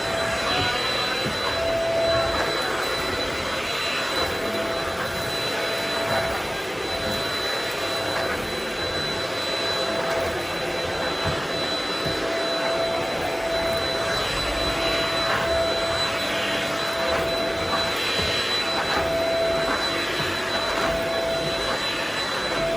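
Vacuum cleaner running steadily on a rug, with a constant high whine and a lower tone that drops in and out every second or two.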